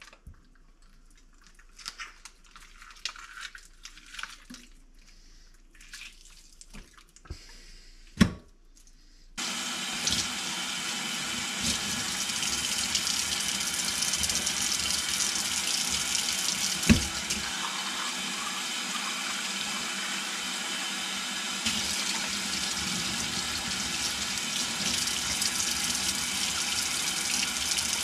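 A few clicks and knocks from hands handling a squid in a stainless steel kitchen sink, the loudest knock about eight seconds in. About nine seconds in, the mixer tap is turned on and water runs steadily into the steel sink as the squid is rinsed under it, with one more knock partway through.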